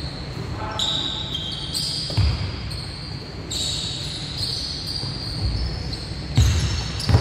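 Basketball being played on a hardwood gym court: sneakers squeaking and a ball bouncing, with a thud about two seconds in and two more near the end.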